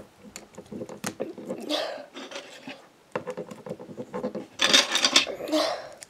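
Plastic Lego pieces being handled and pressed together: scattered small clicks and rubbing, with a louder rustling scrape in the second half.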